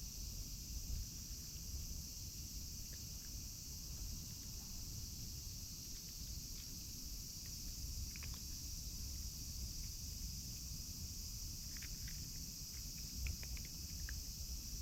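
Steady high-pitched chorus of insects, crickets, with a low rumble underneath. A few small sharp clicks come about halfway through and again near the end.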